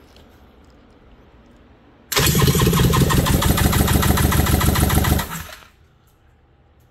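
Yamaha SUV WaveRunner three-cylinder two-stroke engine being spun over by its electric starter with all spark plugs removed, for a compression test on cylinder three. It cranks for about three seconds, a fast even chugging that stops suddenly, without firing.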